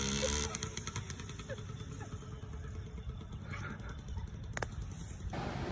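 Electric hand mixer's motor running with a low, uneven rumble, and a single sharp click near the end.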